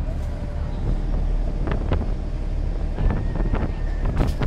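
Engine of an open-sided river passenger boat running with a steady low rumble, wind buffeting the microphone. A few sharp knocks come through, the loudest near the end.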